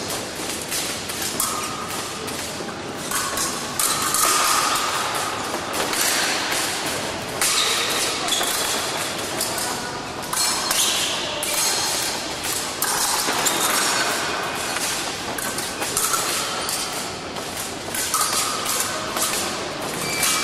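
An épée bout in progress in a large, echoing hall: thuds of fencers' footwork on the piste and occasional ping-like blade contacts, over a steady din from the hall.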